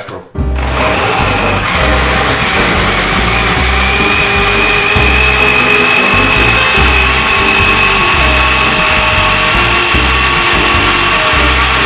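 Countertop electric blender switched on about half a second in and running at full speed, blending a thick fruit-and-kefir smoothie with a steady loud whir and high whine. Music plays underneath.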